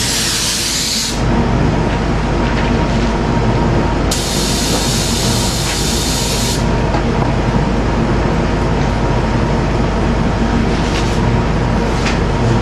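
Spray gun spraying a coat of high-build pre-catalyzed finish: a hiss that stops about a second in, then a second burst of about two and a half seconds starting about four seconds in, over a steady low machine drone.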